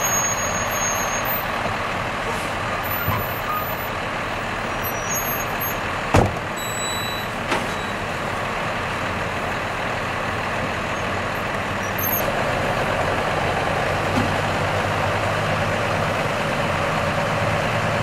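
Large trucks' engines idling, a steady rumble, with a sharp knock about six seconds in.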